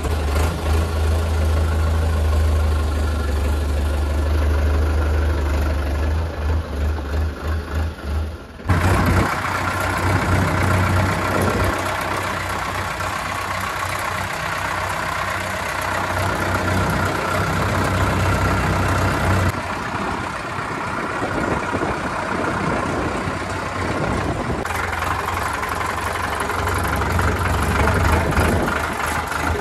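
Sonalika DI 750 Sikander tractor's diesel engine running steadily. The sound changes abruptly about 9 seconds in and again near 20 and 25 seconds, from a deep rumble to a brighter, fuller engine note.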